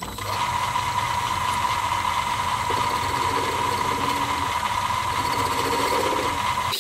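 Mini-lathe running steadily with a constant high whine over a motor hum, its cutting tool turning down the end of a small hex-bar workpiece to machine clearance.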